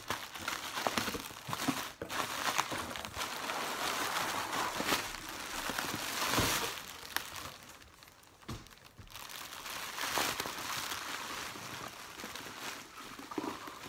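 Plastic bubble wrap crinkling and rustling as it is handled and pulled out of a cardboard box, with a brief quieter lull about eight seconds in.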